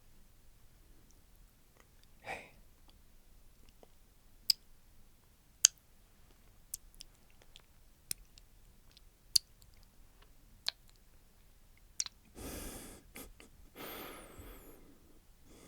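Quiet pause with sharp single clicks close to the microphone, about one every second or so, and two longer breaths near the end.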